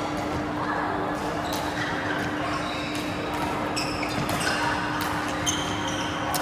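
Badminton rally: rackets hitting the shuttlecock in sharp, irregular strikes and players' shoes squeaking on the court, over background voices and a steady low hum.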